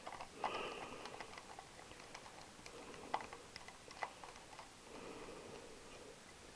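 Faint, scattered clicks and light metal taps of small hand tools and parts being handled, with a couple of soft rustles.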